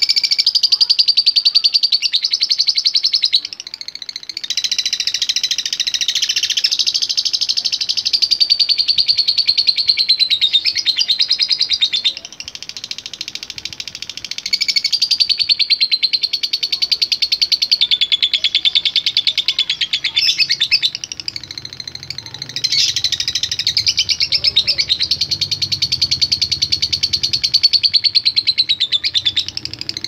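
Fischer's lovebird singing in long runs of fast, unbroken chattering (the long 'ngekek' song that lovebird keepers train for). The runs last several seconds each and are broken by three short pauses.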